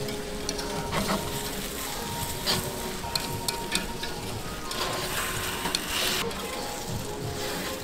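Giant takoyaki sizzling in a cast-iron takoyaki griddle, with metal picks clicking and scraping against the pan as the balls are turned.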